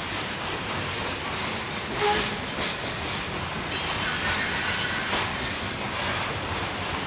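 Freight train rolling past with steady wheel and rail noise, its wheels briefly squealing against the rails about two seconds in, then squealing again, higher and longer, a couple of seconds later.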